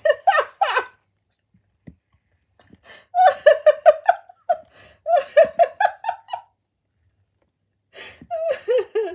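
A person laughing in runs of quick giggling pulses, about five a second, three times over with pauses between.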